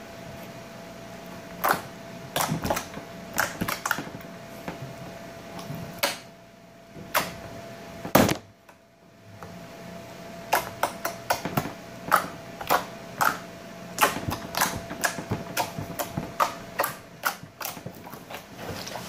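Slime being kneaded, squeezed and pulled apart by hand on a tabletop: irregular wet pops and clicks as trapped air bursts, with one loud pop about eight seconds in.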